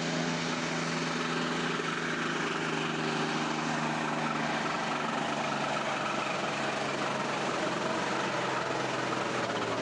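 Farm tractor's diesel engine running flat out under heavy load as it pulls a tractor-pulling sled, with a steady drone at an even level.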